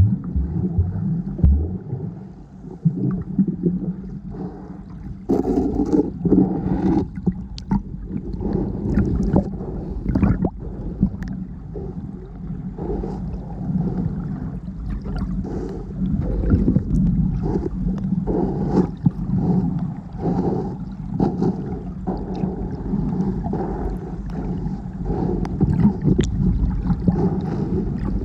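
Muffled sloshing and gurgling of seawater around a camera in the water, broken by irregular knocks and splashes.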